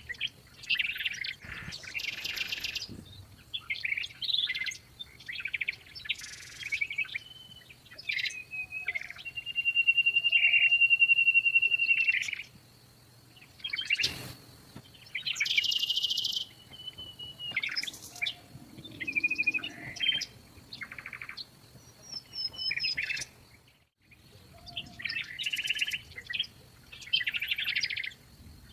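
Small songbirds chirping and singing: a run of short calls, whistled notes and buzzy trills, one after another.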